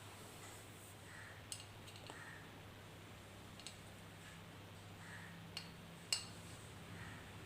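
Refrigerator compressor energised on its run winding alone, humming faintly and steadily without starting: it is waiting for the start winding to be switched in. A few light sharp clicks and taps, the loudest about six seconds in.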